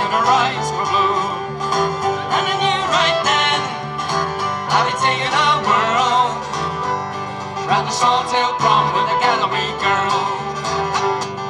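Acoustic folk/country-style music with guitar playing steadily.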